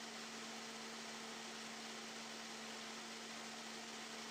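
Steady hiss with a low, even hum underneath, unchanging throughout; no distinct handling sounds stand out.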